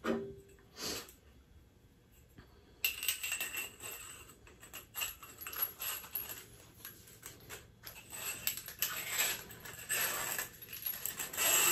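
Metal fittings of a pull-down kitchen faucet clinking and rattling as they are handled and fitted together by hand: two short knocks in the first second, then from about three seconds in a steady run of light metallic clicks and jingles.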